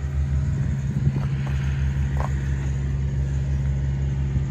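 Steady low engine-like hum from a motor or machine, starting suddenly and holding an even pitch and level.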